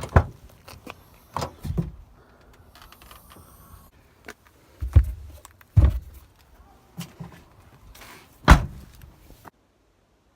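A handful of separate knocks and thumps, about six over eight seconds, with faint rustling and handling noise between them. The sound then cuts off abruptly near the end.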